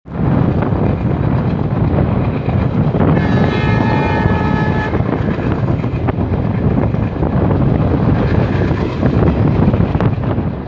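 Indian Railways passenger train running at speed, a loud steady rumble of wheels and coach heard from an open doorway, with occasional clicks of the wheels over rail joints. About three seconds in, a train horn sounds one steady multi-tone blast for about two seconds.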